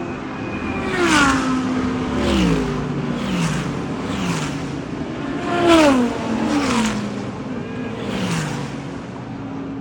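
Race cars passing one after another at speed, each engine note dropping in pitch as it goes by, over a steady engine drone.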